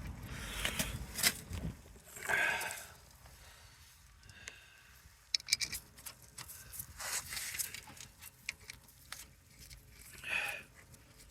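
Front brake caliper being fitted back on over new brake pads: scattered light metal clicks, clinks and brief scrapes of hand work, with clusters of sharper clicks about five and seven seconds in.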